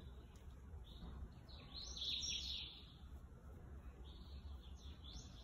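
Several short, high-pitched bird chirps, the loudest about two seconds in and another near the end, over a faint low steady hum.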